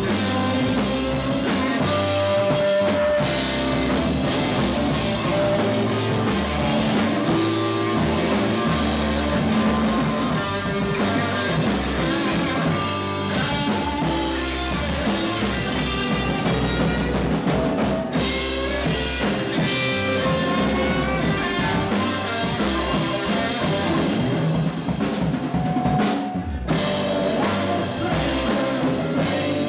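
Live rock band playing: electric bass, electric guitar and drum kit, loud and steady, with a momentary break in the sound near the end.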